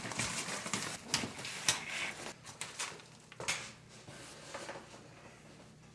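Handling a photographic soft box during assembly: scattered light clicks, knocks and rustling of its rods and fabric, busiest in the first couple of seconds and dying away toward the end.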